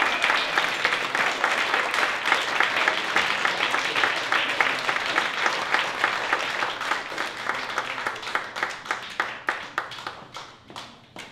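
Audience applauding, dense at first, then thinning to a few scattered hand claps as it dies away near the end.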